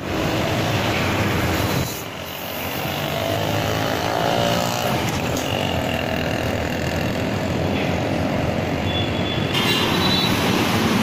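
Steady roadside traffic noise from passing vehicles.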